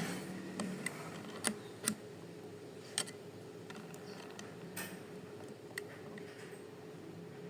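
Light, irregular clicks of small sewing-machine parts, the rotary hook assembly, being handled and fitted, about six sharp ticks spread over several seconds above a faint steady hum.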